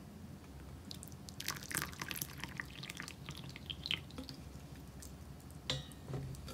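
Crinkling and rustling of a paper tea bag and its packet being handled, in irregular bursts over a few seconds, followed by two short taps near the end.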